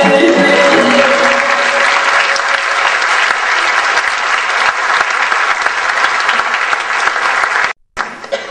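Audience applauding, over the closing notes of a Turkish folk song in the first second or so; the applause cuts off suddenly near the end.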